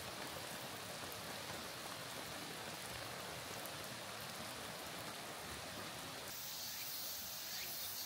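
Steady rain falling, an even soft hiss, with a slight change in its texture about six seconds in.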